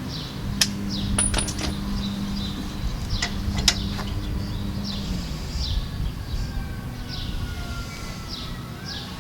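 A few sharp metallic clinks of hand tools being handled, over a low steady hum, with short chirps repeating high in the background.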